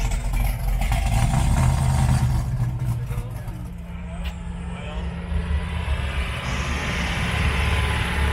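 A car's engine running as it drives past, a deep low exhaust rumble with a steady drone setting in about halfway through and tyre or road hiss building toward the end.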